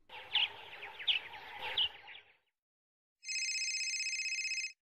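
Birds chirping a few times over a faint background hiss for about two seconds. After a brief silence, a telephone's electronic ring starts about three seconds in: one steady trilling ring lasting about a second and a half, which is the loudest sound.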